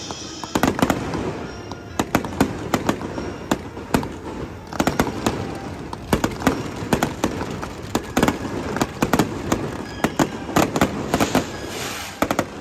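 Aerial fireworks going off in rapid volleys: clusters of sharp bangs and crackling, a second or so at a time, with short lulls between.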